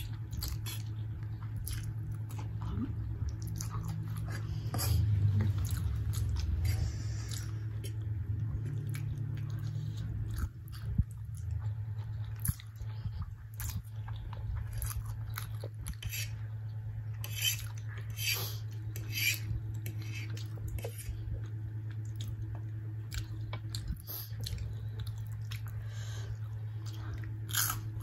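Close-up eating sounds: spicy instant ramen noodles being slurped off a fork and chewed, with many short wet mouth clicks and smacks, over a steady low hum.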